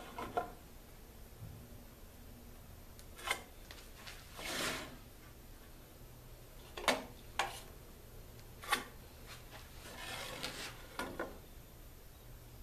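A metal square and pencil handled on a wooden board as marks are drawn: scattered light clicks and taps, with a short scrape about four and a half seconds in and another around ten seconds.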